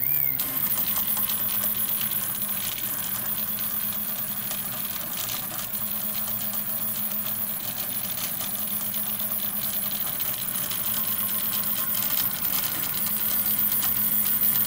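A 3D printer running mid-print: a steady whirring noise with a low hum underneath.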